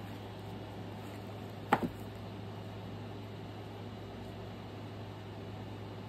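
Steady low room hum, with a sharp double tap a little under two seconds in.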